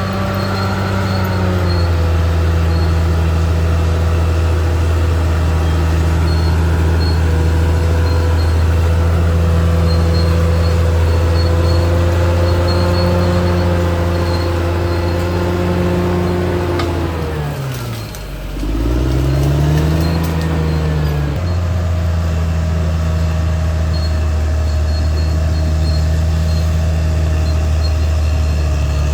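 Caterpillar D6R XL bulldozer's diesel engine running steadily under load, a deep even drone. About 17 seconds in, the engine speed drops sharply, then revs back up over a couple of seconds and settles into a steady run again.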